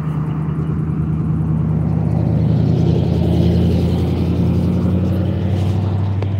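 A vehicle engine running with a steady low hum, while a pickup truck drives past, loudest about three and a half seconds in.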